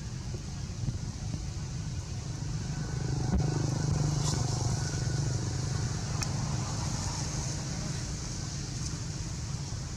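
Motor vehicle engine passing by, its low rumble swelling for a few seconds in the middle and then fading.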